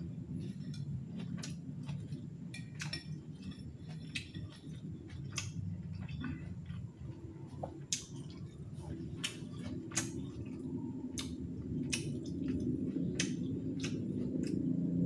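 Close eating sounds: chewing and mouth clicks from a mouthful of chicken noodles and chicken feet, a series of sharp short clicks, with the odd clink of a utensil against a ceramic bowl, over a steady low background murmur.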